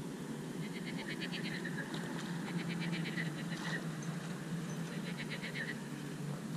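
An animal calls four times, each call about a second of rapid rattling pulses ending in a short note, repeated every couple of seconds over a steady low background rumble.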